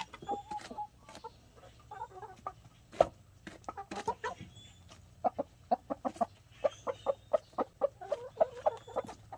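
A flock of Ayam Cemani chickens clucking in quick runs of short calls while pecking at a head of lettuce, with sharp pecking clicks throughout. One loud sharp knock about three seconds in.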